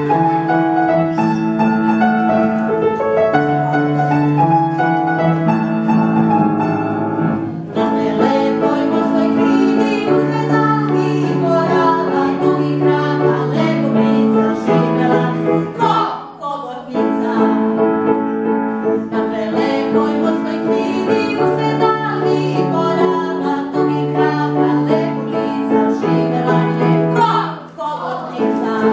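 Upright piano playing the accompaniment of a children's song. About eight seconds in, a woman starts singing the song along with it, with short pauses about halfway and near the end.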